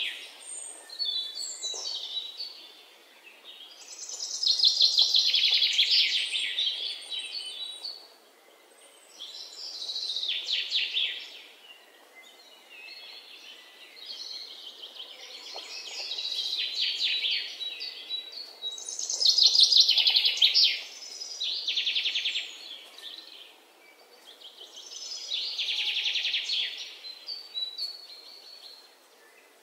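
Songbird singing: high, rapidly trilled phrases a second or two long, repeated every few seconds over a faint steady hiss.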